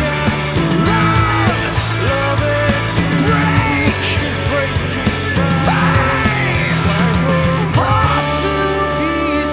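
Rock band playing live in an instrumental stretch of an original song: drums, bass and a lead line with bending notes. About eight seconds in, the band settles onto held, sustained notes.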